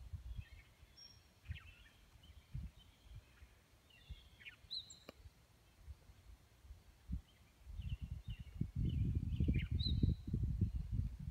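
Small songbirds chirping with short high calls and quick whistled notes. From about eight seconds in, a loud, uneven low rumble of wind on the microphone covers them.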